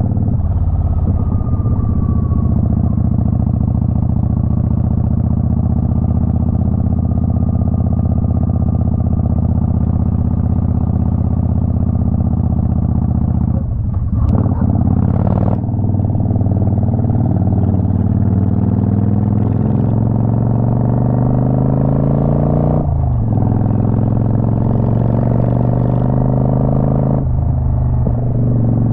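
Twin-cylinder motorcycle engine under way. It runs at a steady pitch for the first half, then climbs in pitch as the bike accelerates, with three brief breaks where it shifts up a gear: one about halfway through and two near the end.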